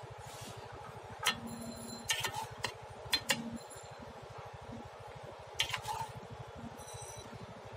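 Metal ladle knocking and clinking against the side of a large metal cooking pot as a thick curry is stirred, several clinks ringing briefly, the sharpest around one and three seconds in and again near six seconds. A low, fast, even pulsing runs underneath.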